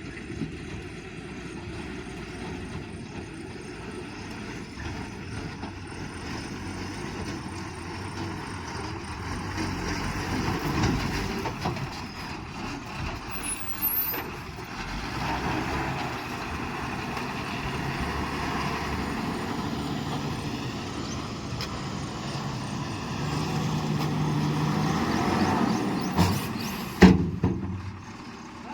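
Diesel engine of a JCB 3DX backhoe loader working, revving up and down in swells as it digs and lifts. A sharp, loud knock comes a little before the end.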